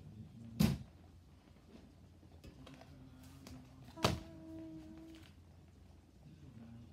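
Knocks of household things being handled and put away in a small room: a dull thump under a second in, then a sharp knock about four seconds in that leaves a short ringing note for about a second.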